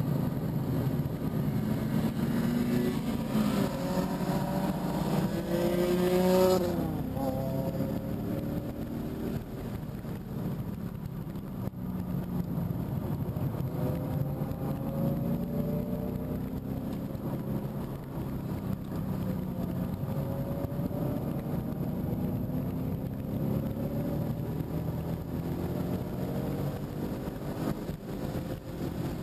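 A 2015 Mustang GT's 5.0 L V8 under hard acceleration on track. The engine note climbs to a peak about six seconds in, drops sharply, then climbs steadily again, over road and wind noise.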